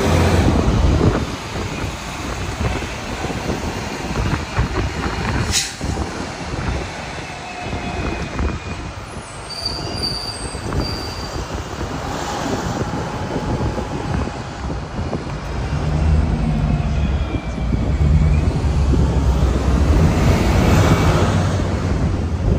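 Open-top double-decker tour bus on the move, heard from its upper deck: a steady low engine rumble and road noise with faint squeals. There is a sharp click about five and a half seconds in, and the engine grows louder over the last several seconds.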